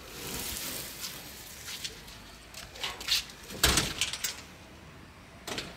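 A few separate knocks and clatters of things being handled, the loudest about two-thirds of the way through and another near the end.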